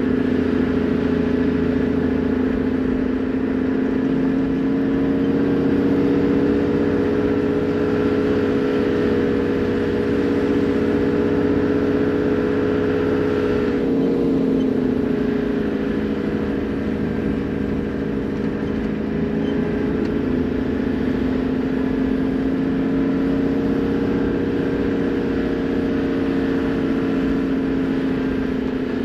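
Toyota Land Cruiser HZJ78's 1HZ inline-six diesel running steadily while the vehicle drives, a continuous drone whose pitch wavers briefly about halfway through.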